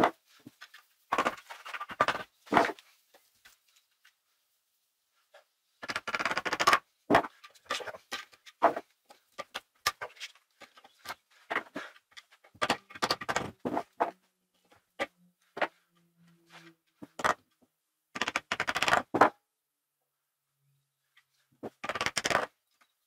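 Wooden mallet knocking on a ratchet pipe-threading die head clamped in a bench vise, in short clusters of quick strikes with pauses between.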